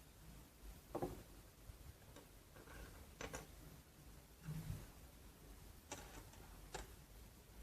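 A handful of faint, sharp clicks and light knocks at uneven intervals over a near-silent background, the loudest about a second in.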